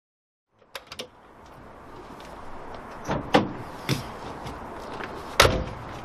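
After a brief silence, a couple of clicks and then several sharp knocks and bangs of a door, the loudest and heaviest thud about five and a half seconds in, over a rising rush of wind and handling noise.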